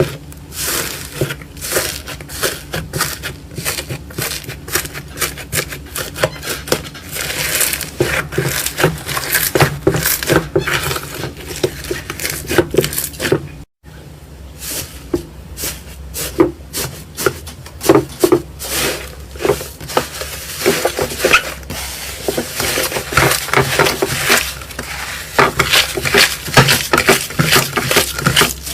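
Slime being squeezed, poked and stretched by hand, giving dense, irregular clicking and crackling pops, with a brief break about halfway through.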